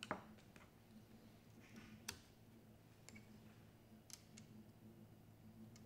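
A handful of faint, light metallic clicks and taps from a 2 mm Allen key and small parts of an FX Panthera air rifle's cocking assembly being handled and fitted. The sharpest click comes at the start and another about two seconds in, with lighter ticks after.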